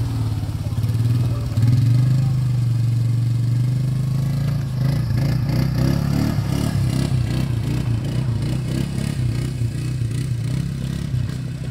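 Polaris quad's engine running at low speed as it drives through a shallow pond, water splashing around the tyres. About halfway in, irregular clattering and splashing join the steady engine note as it climbs out over rocks.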